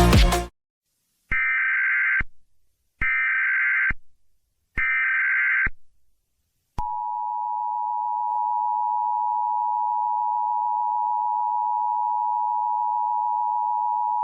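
A dance-music track cuts off just after the start, then Emergency Alert System tones play. First come three short bursts of SAME header data about a second apart. Then, from about seven seconds in, the steady two-tone EAS attention signal holds.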